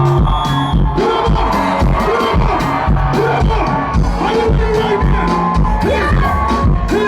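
Loud live band music over a concert sound system: a steady heavy bass-and-kick-drum beat with a gliding melody line above, crowd noise underneath.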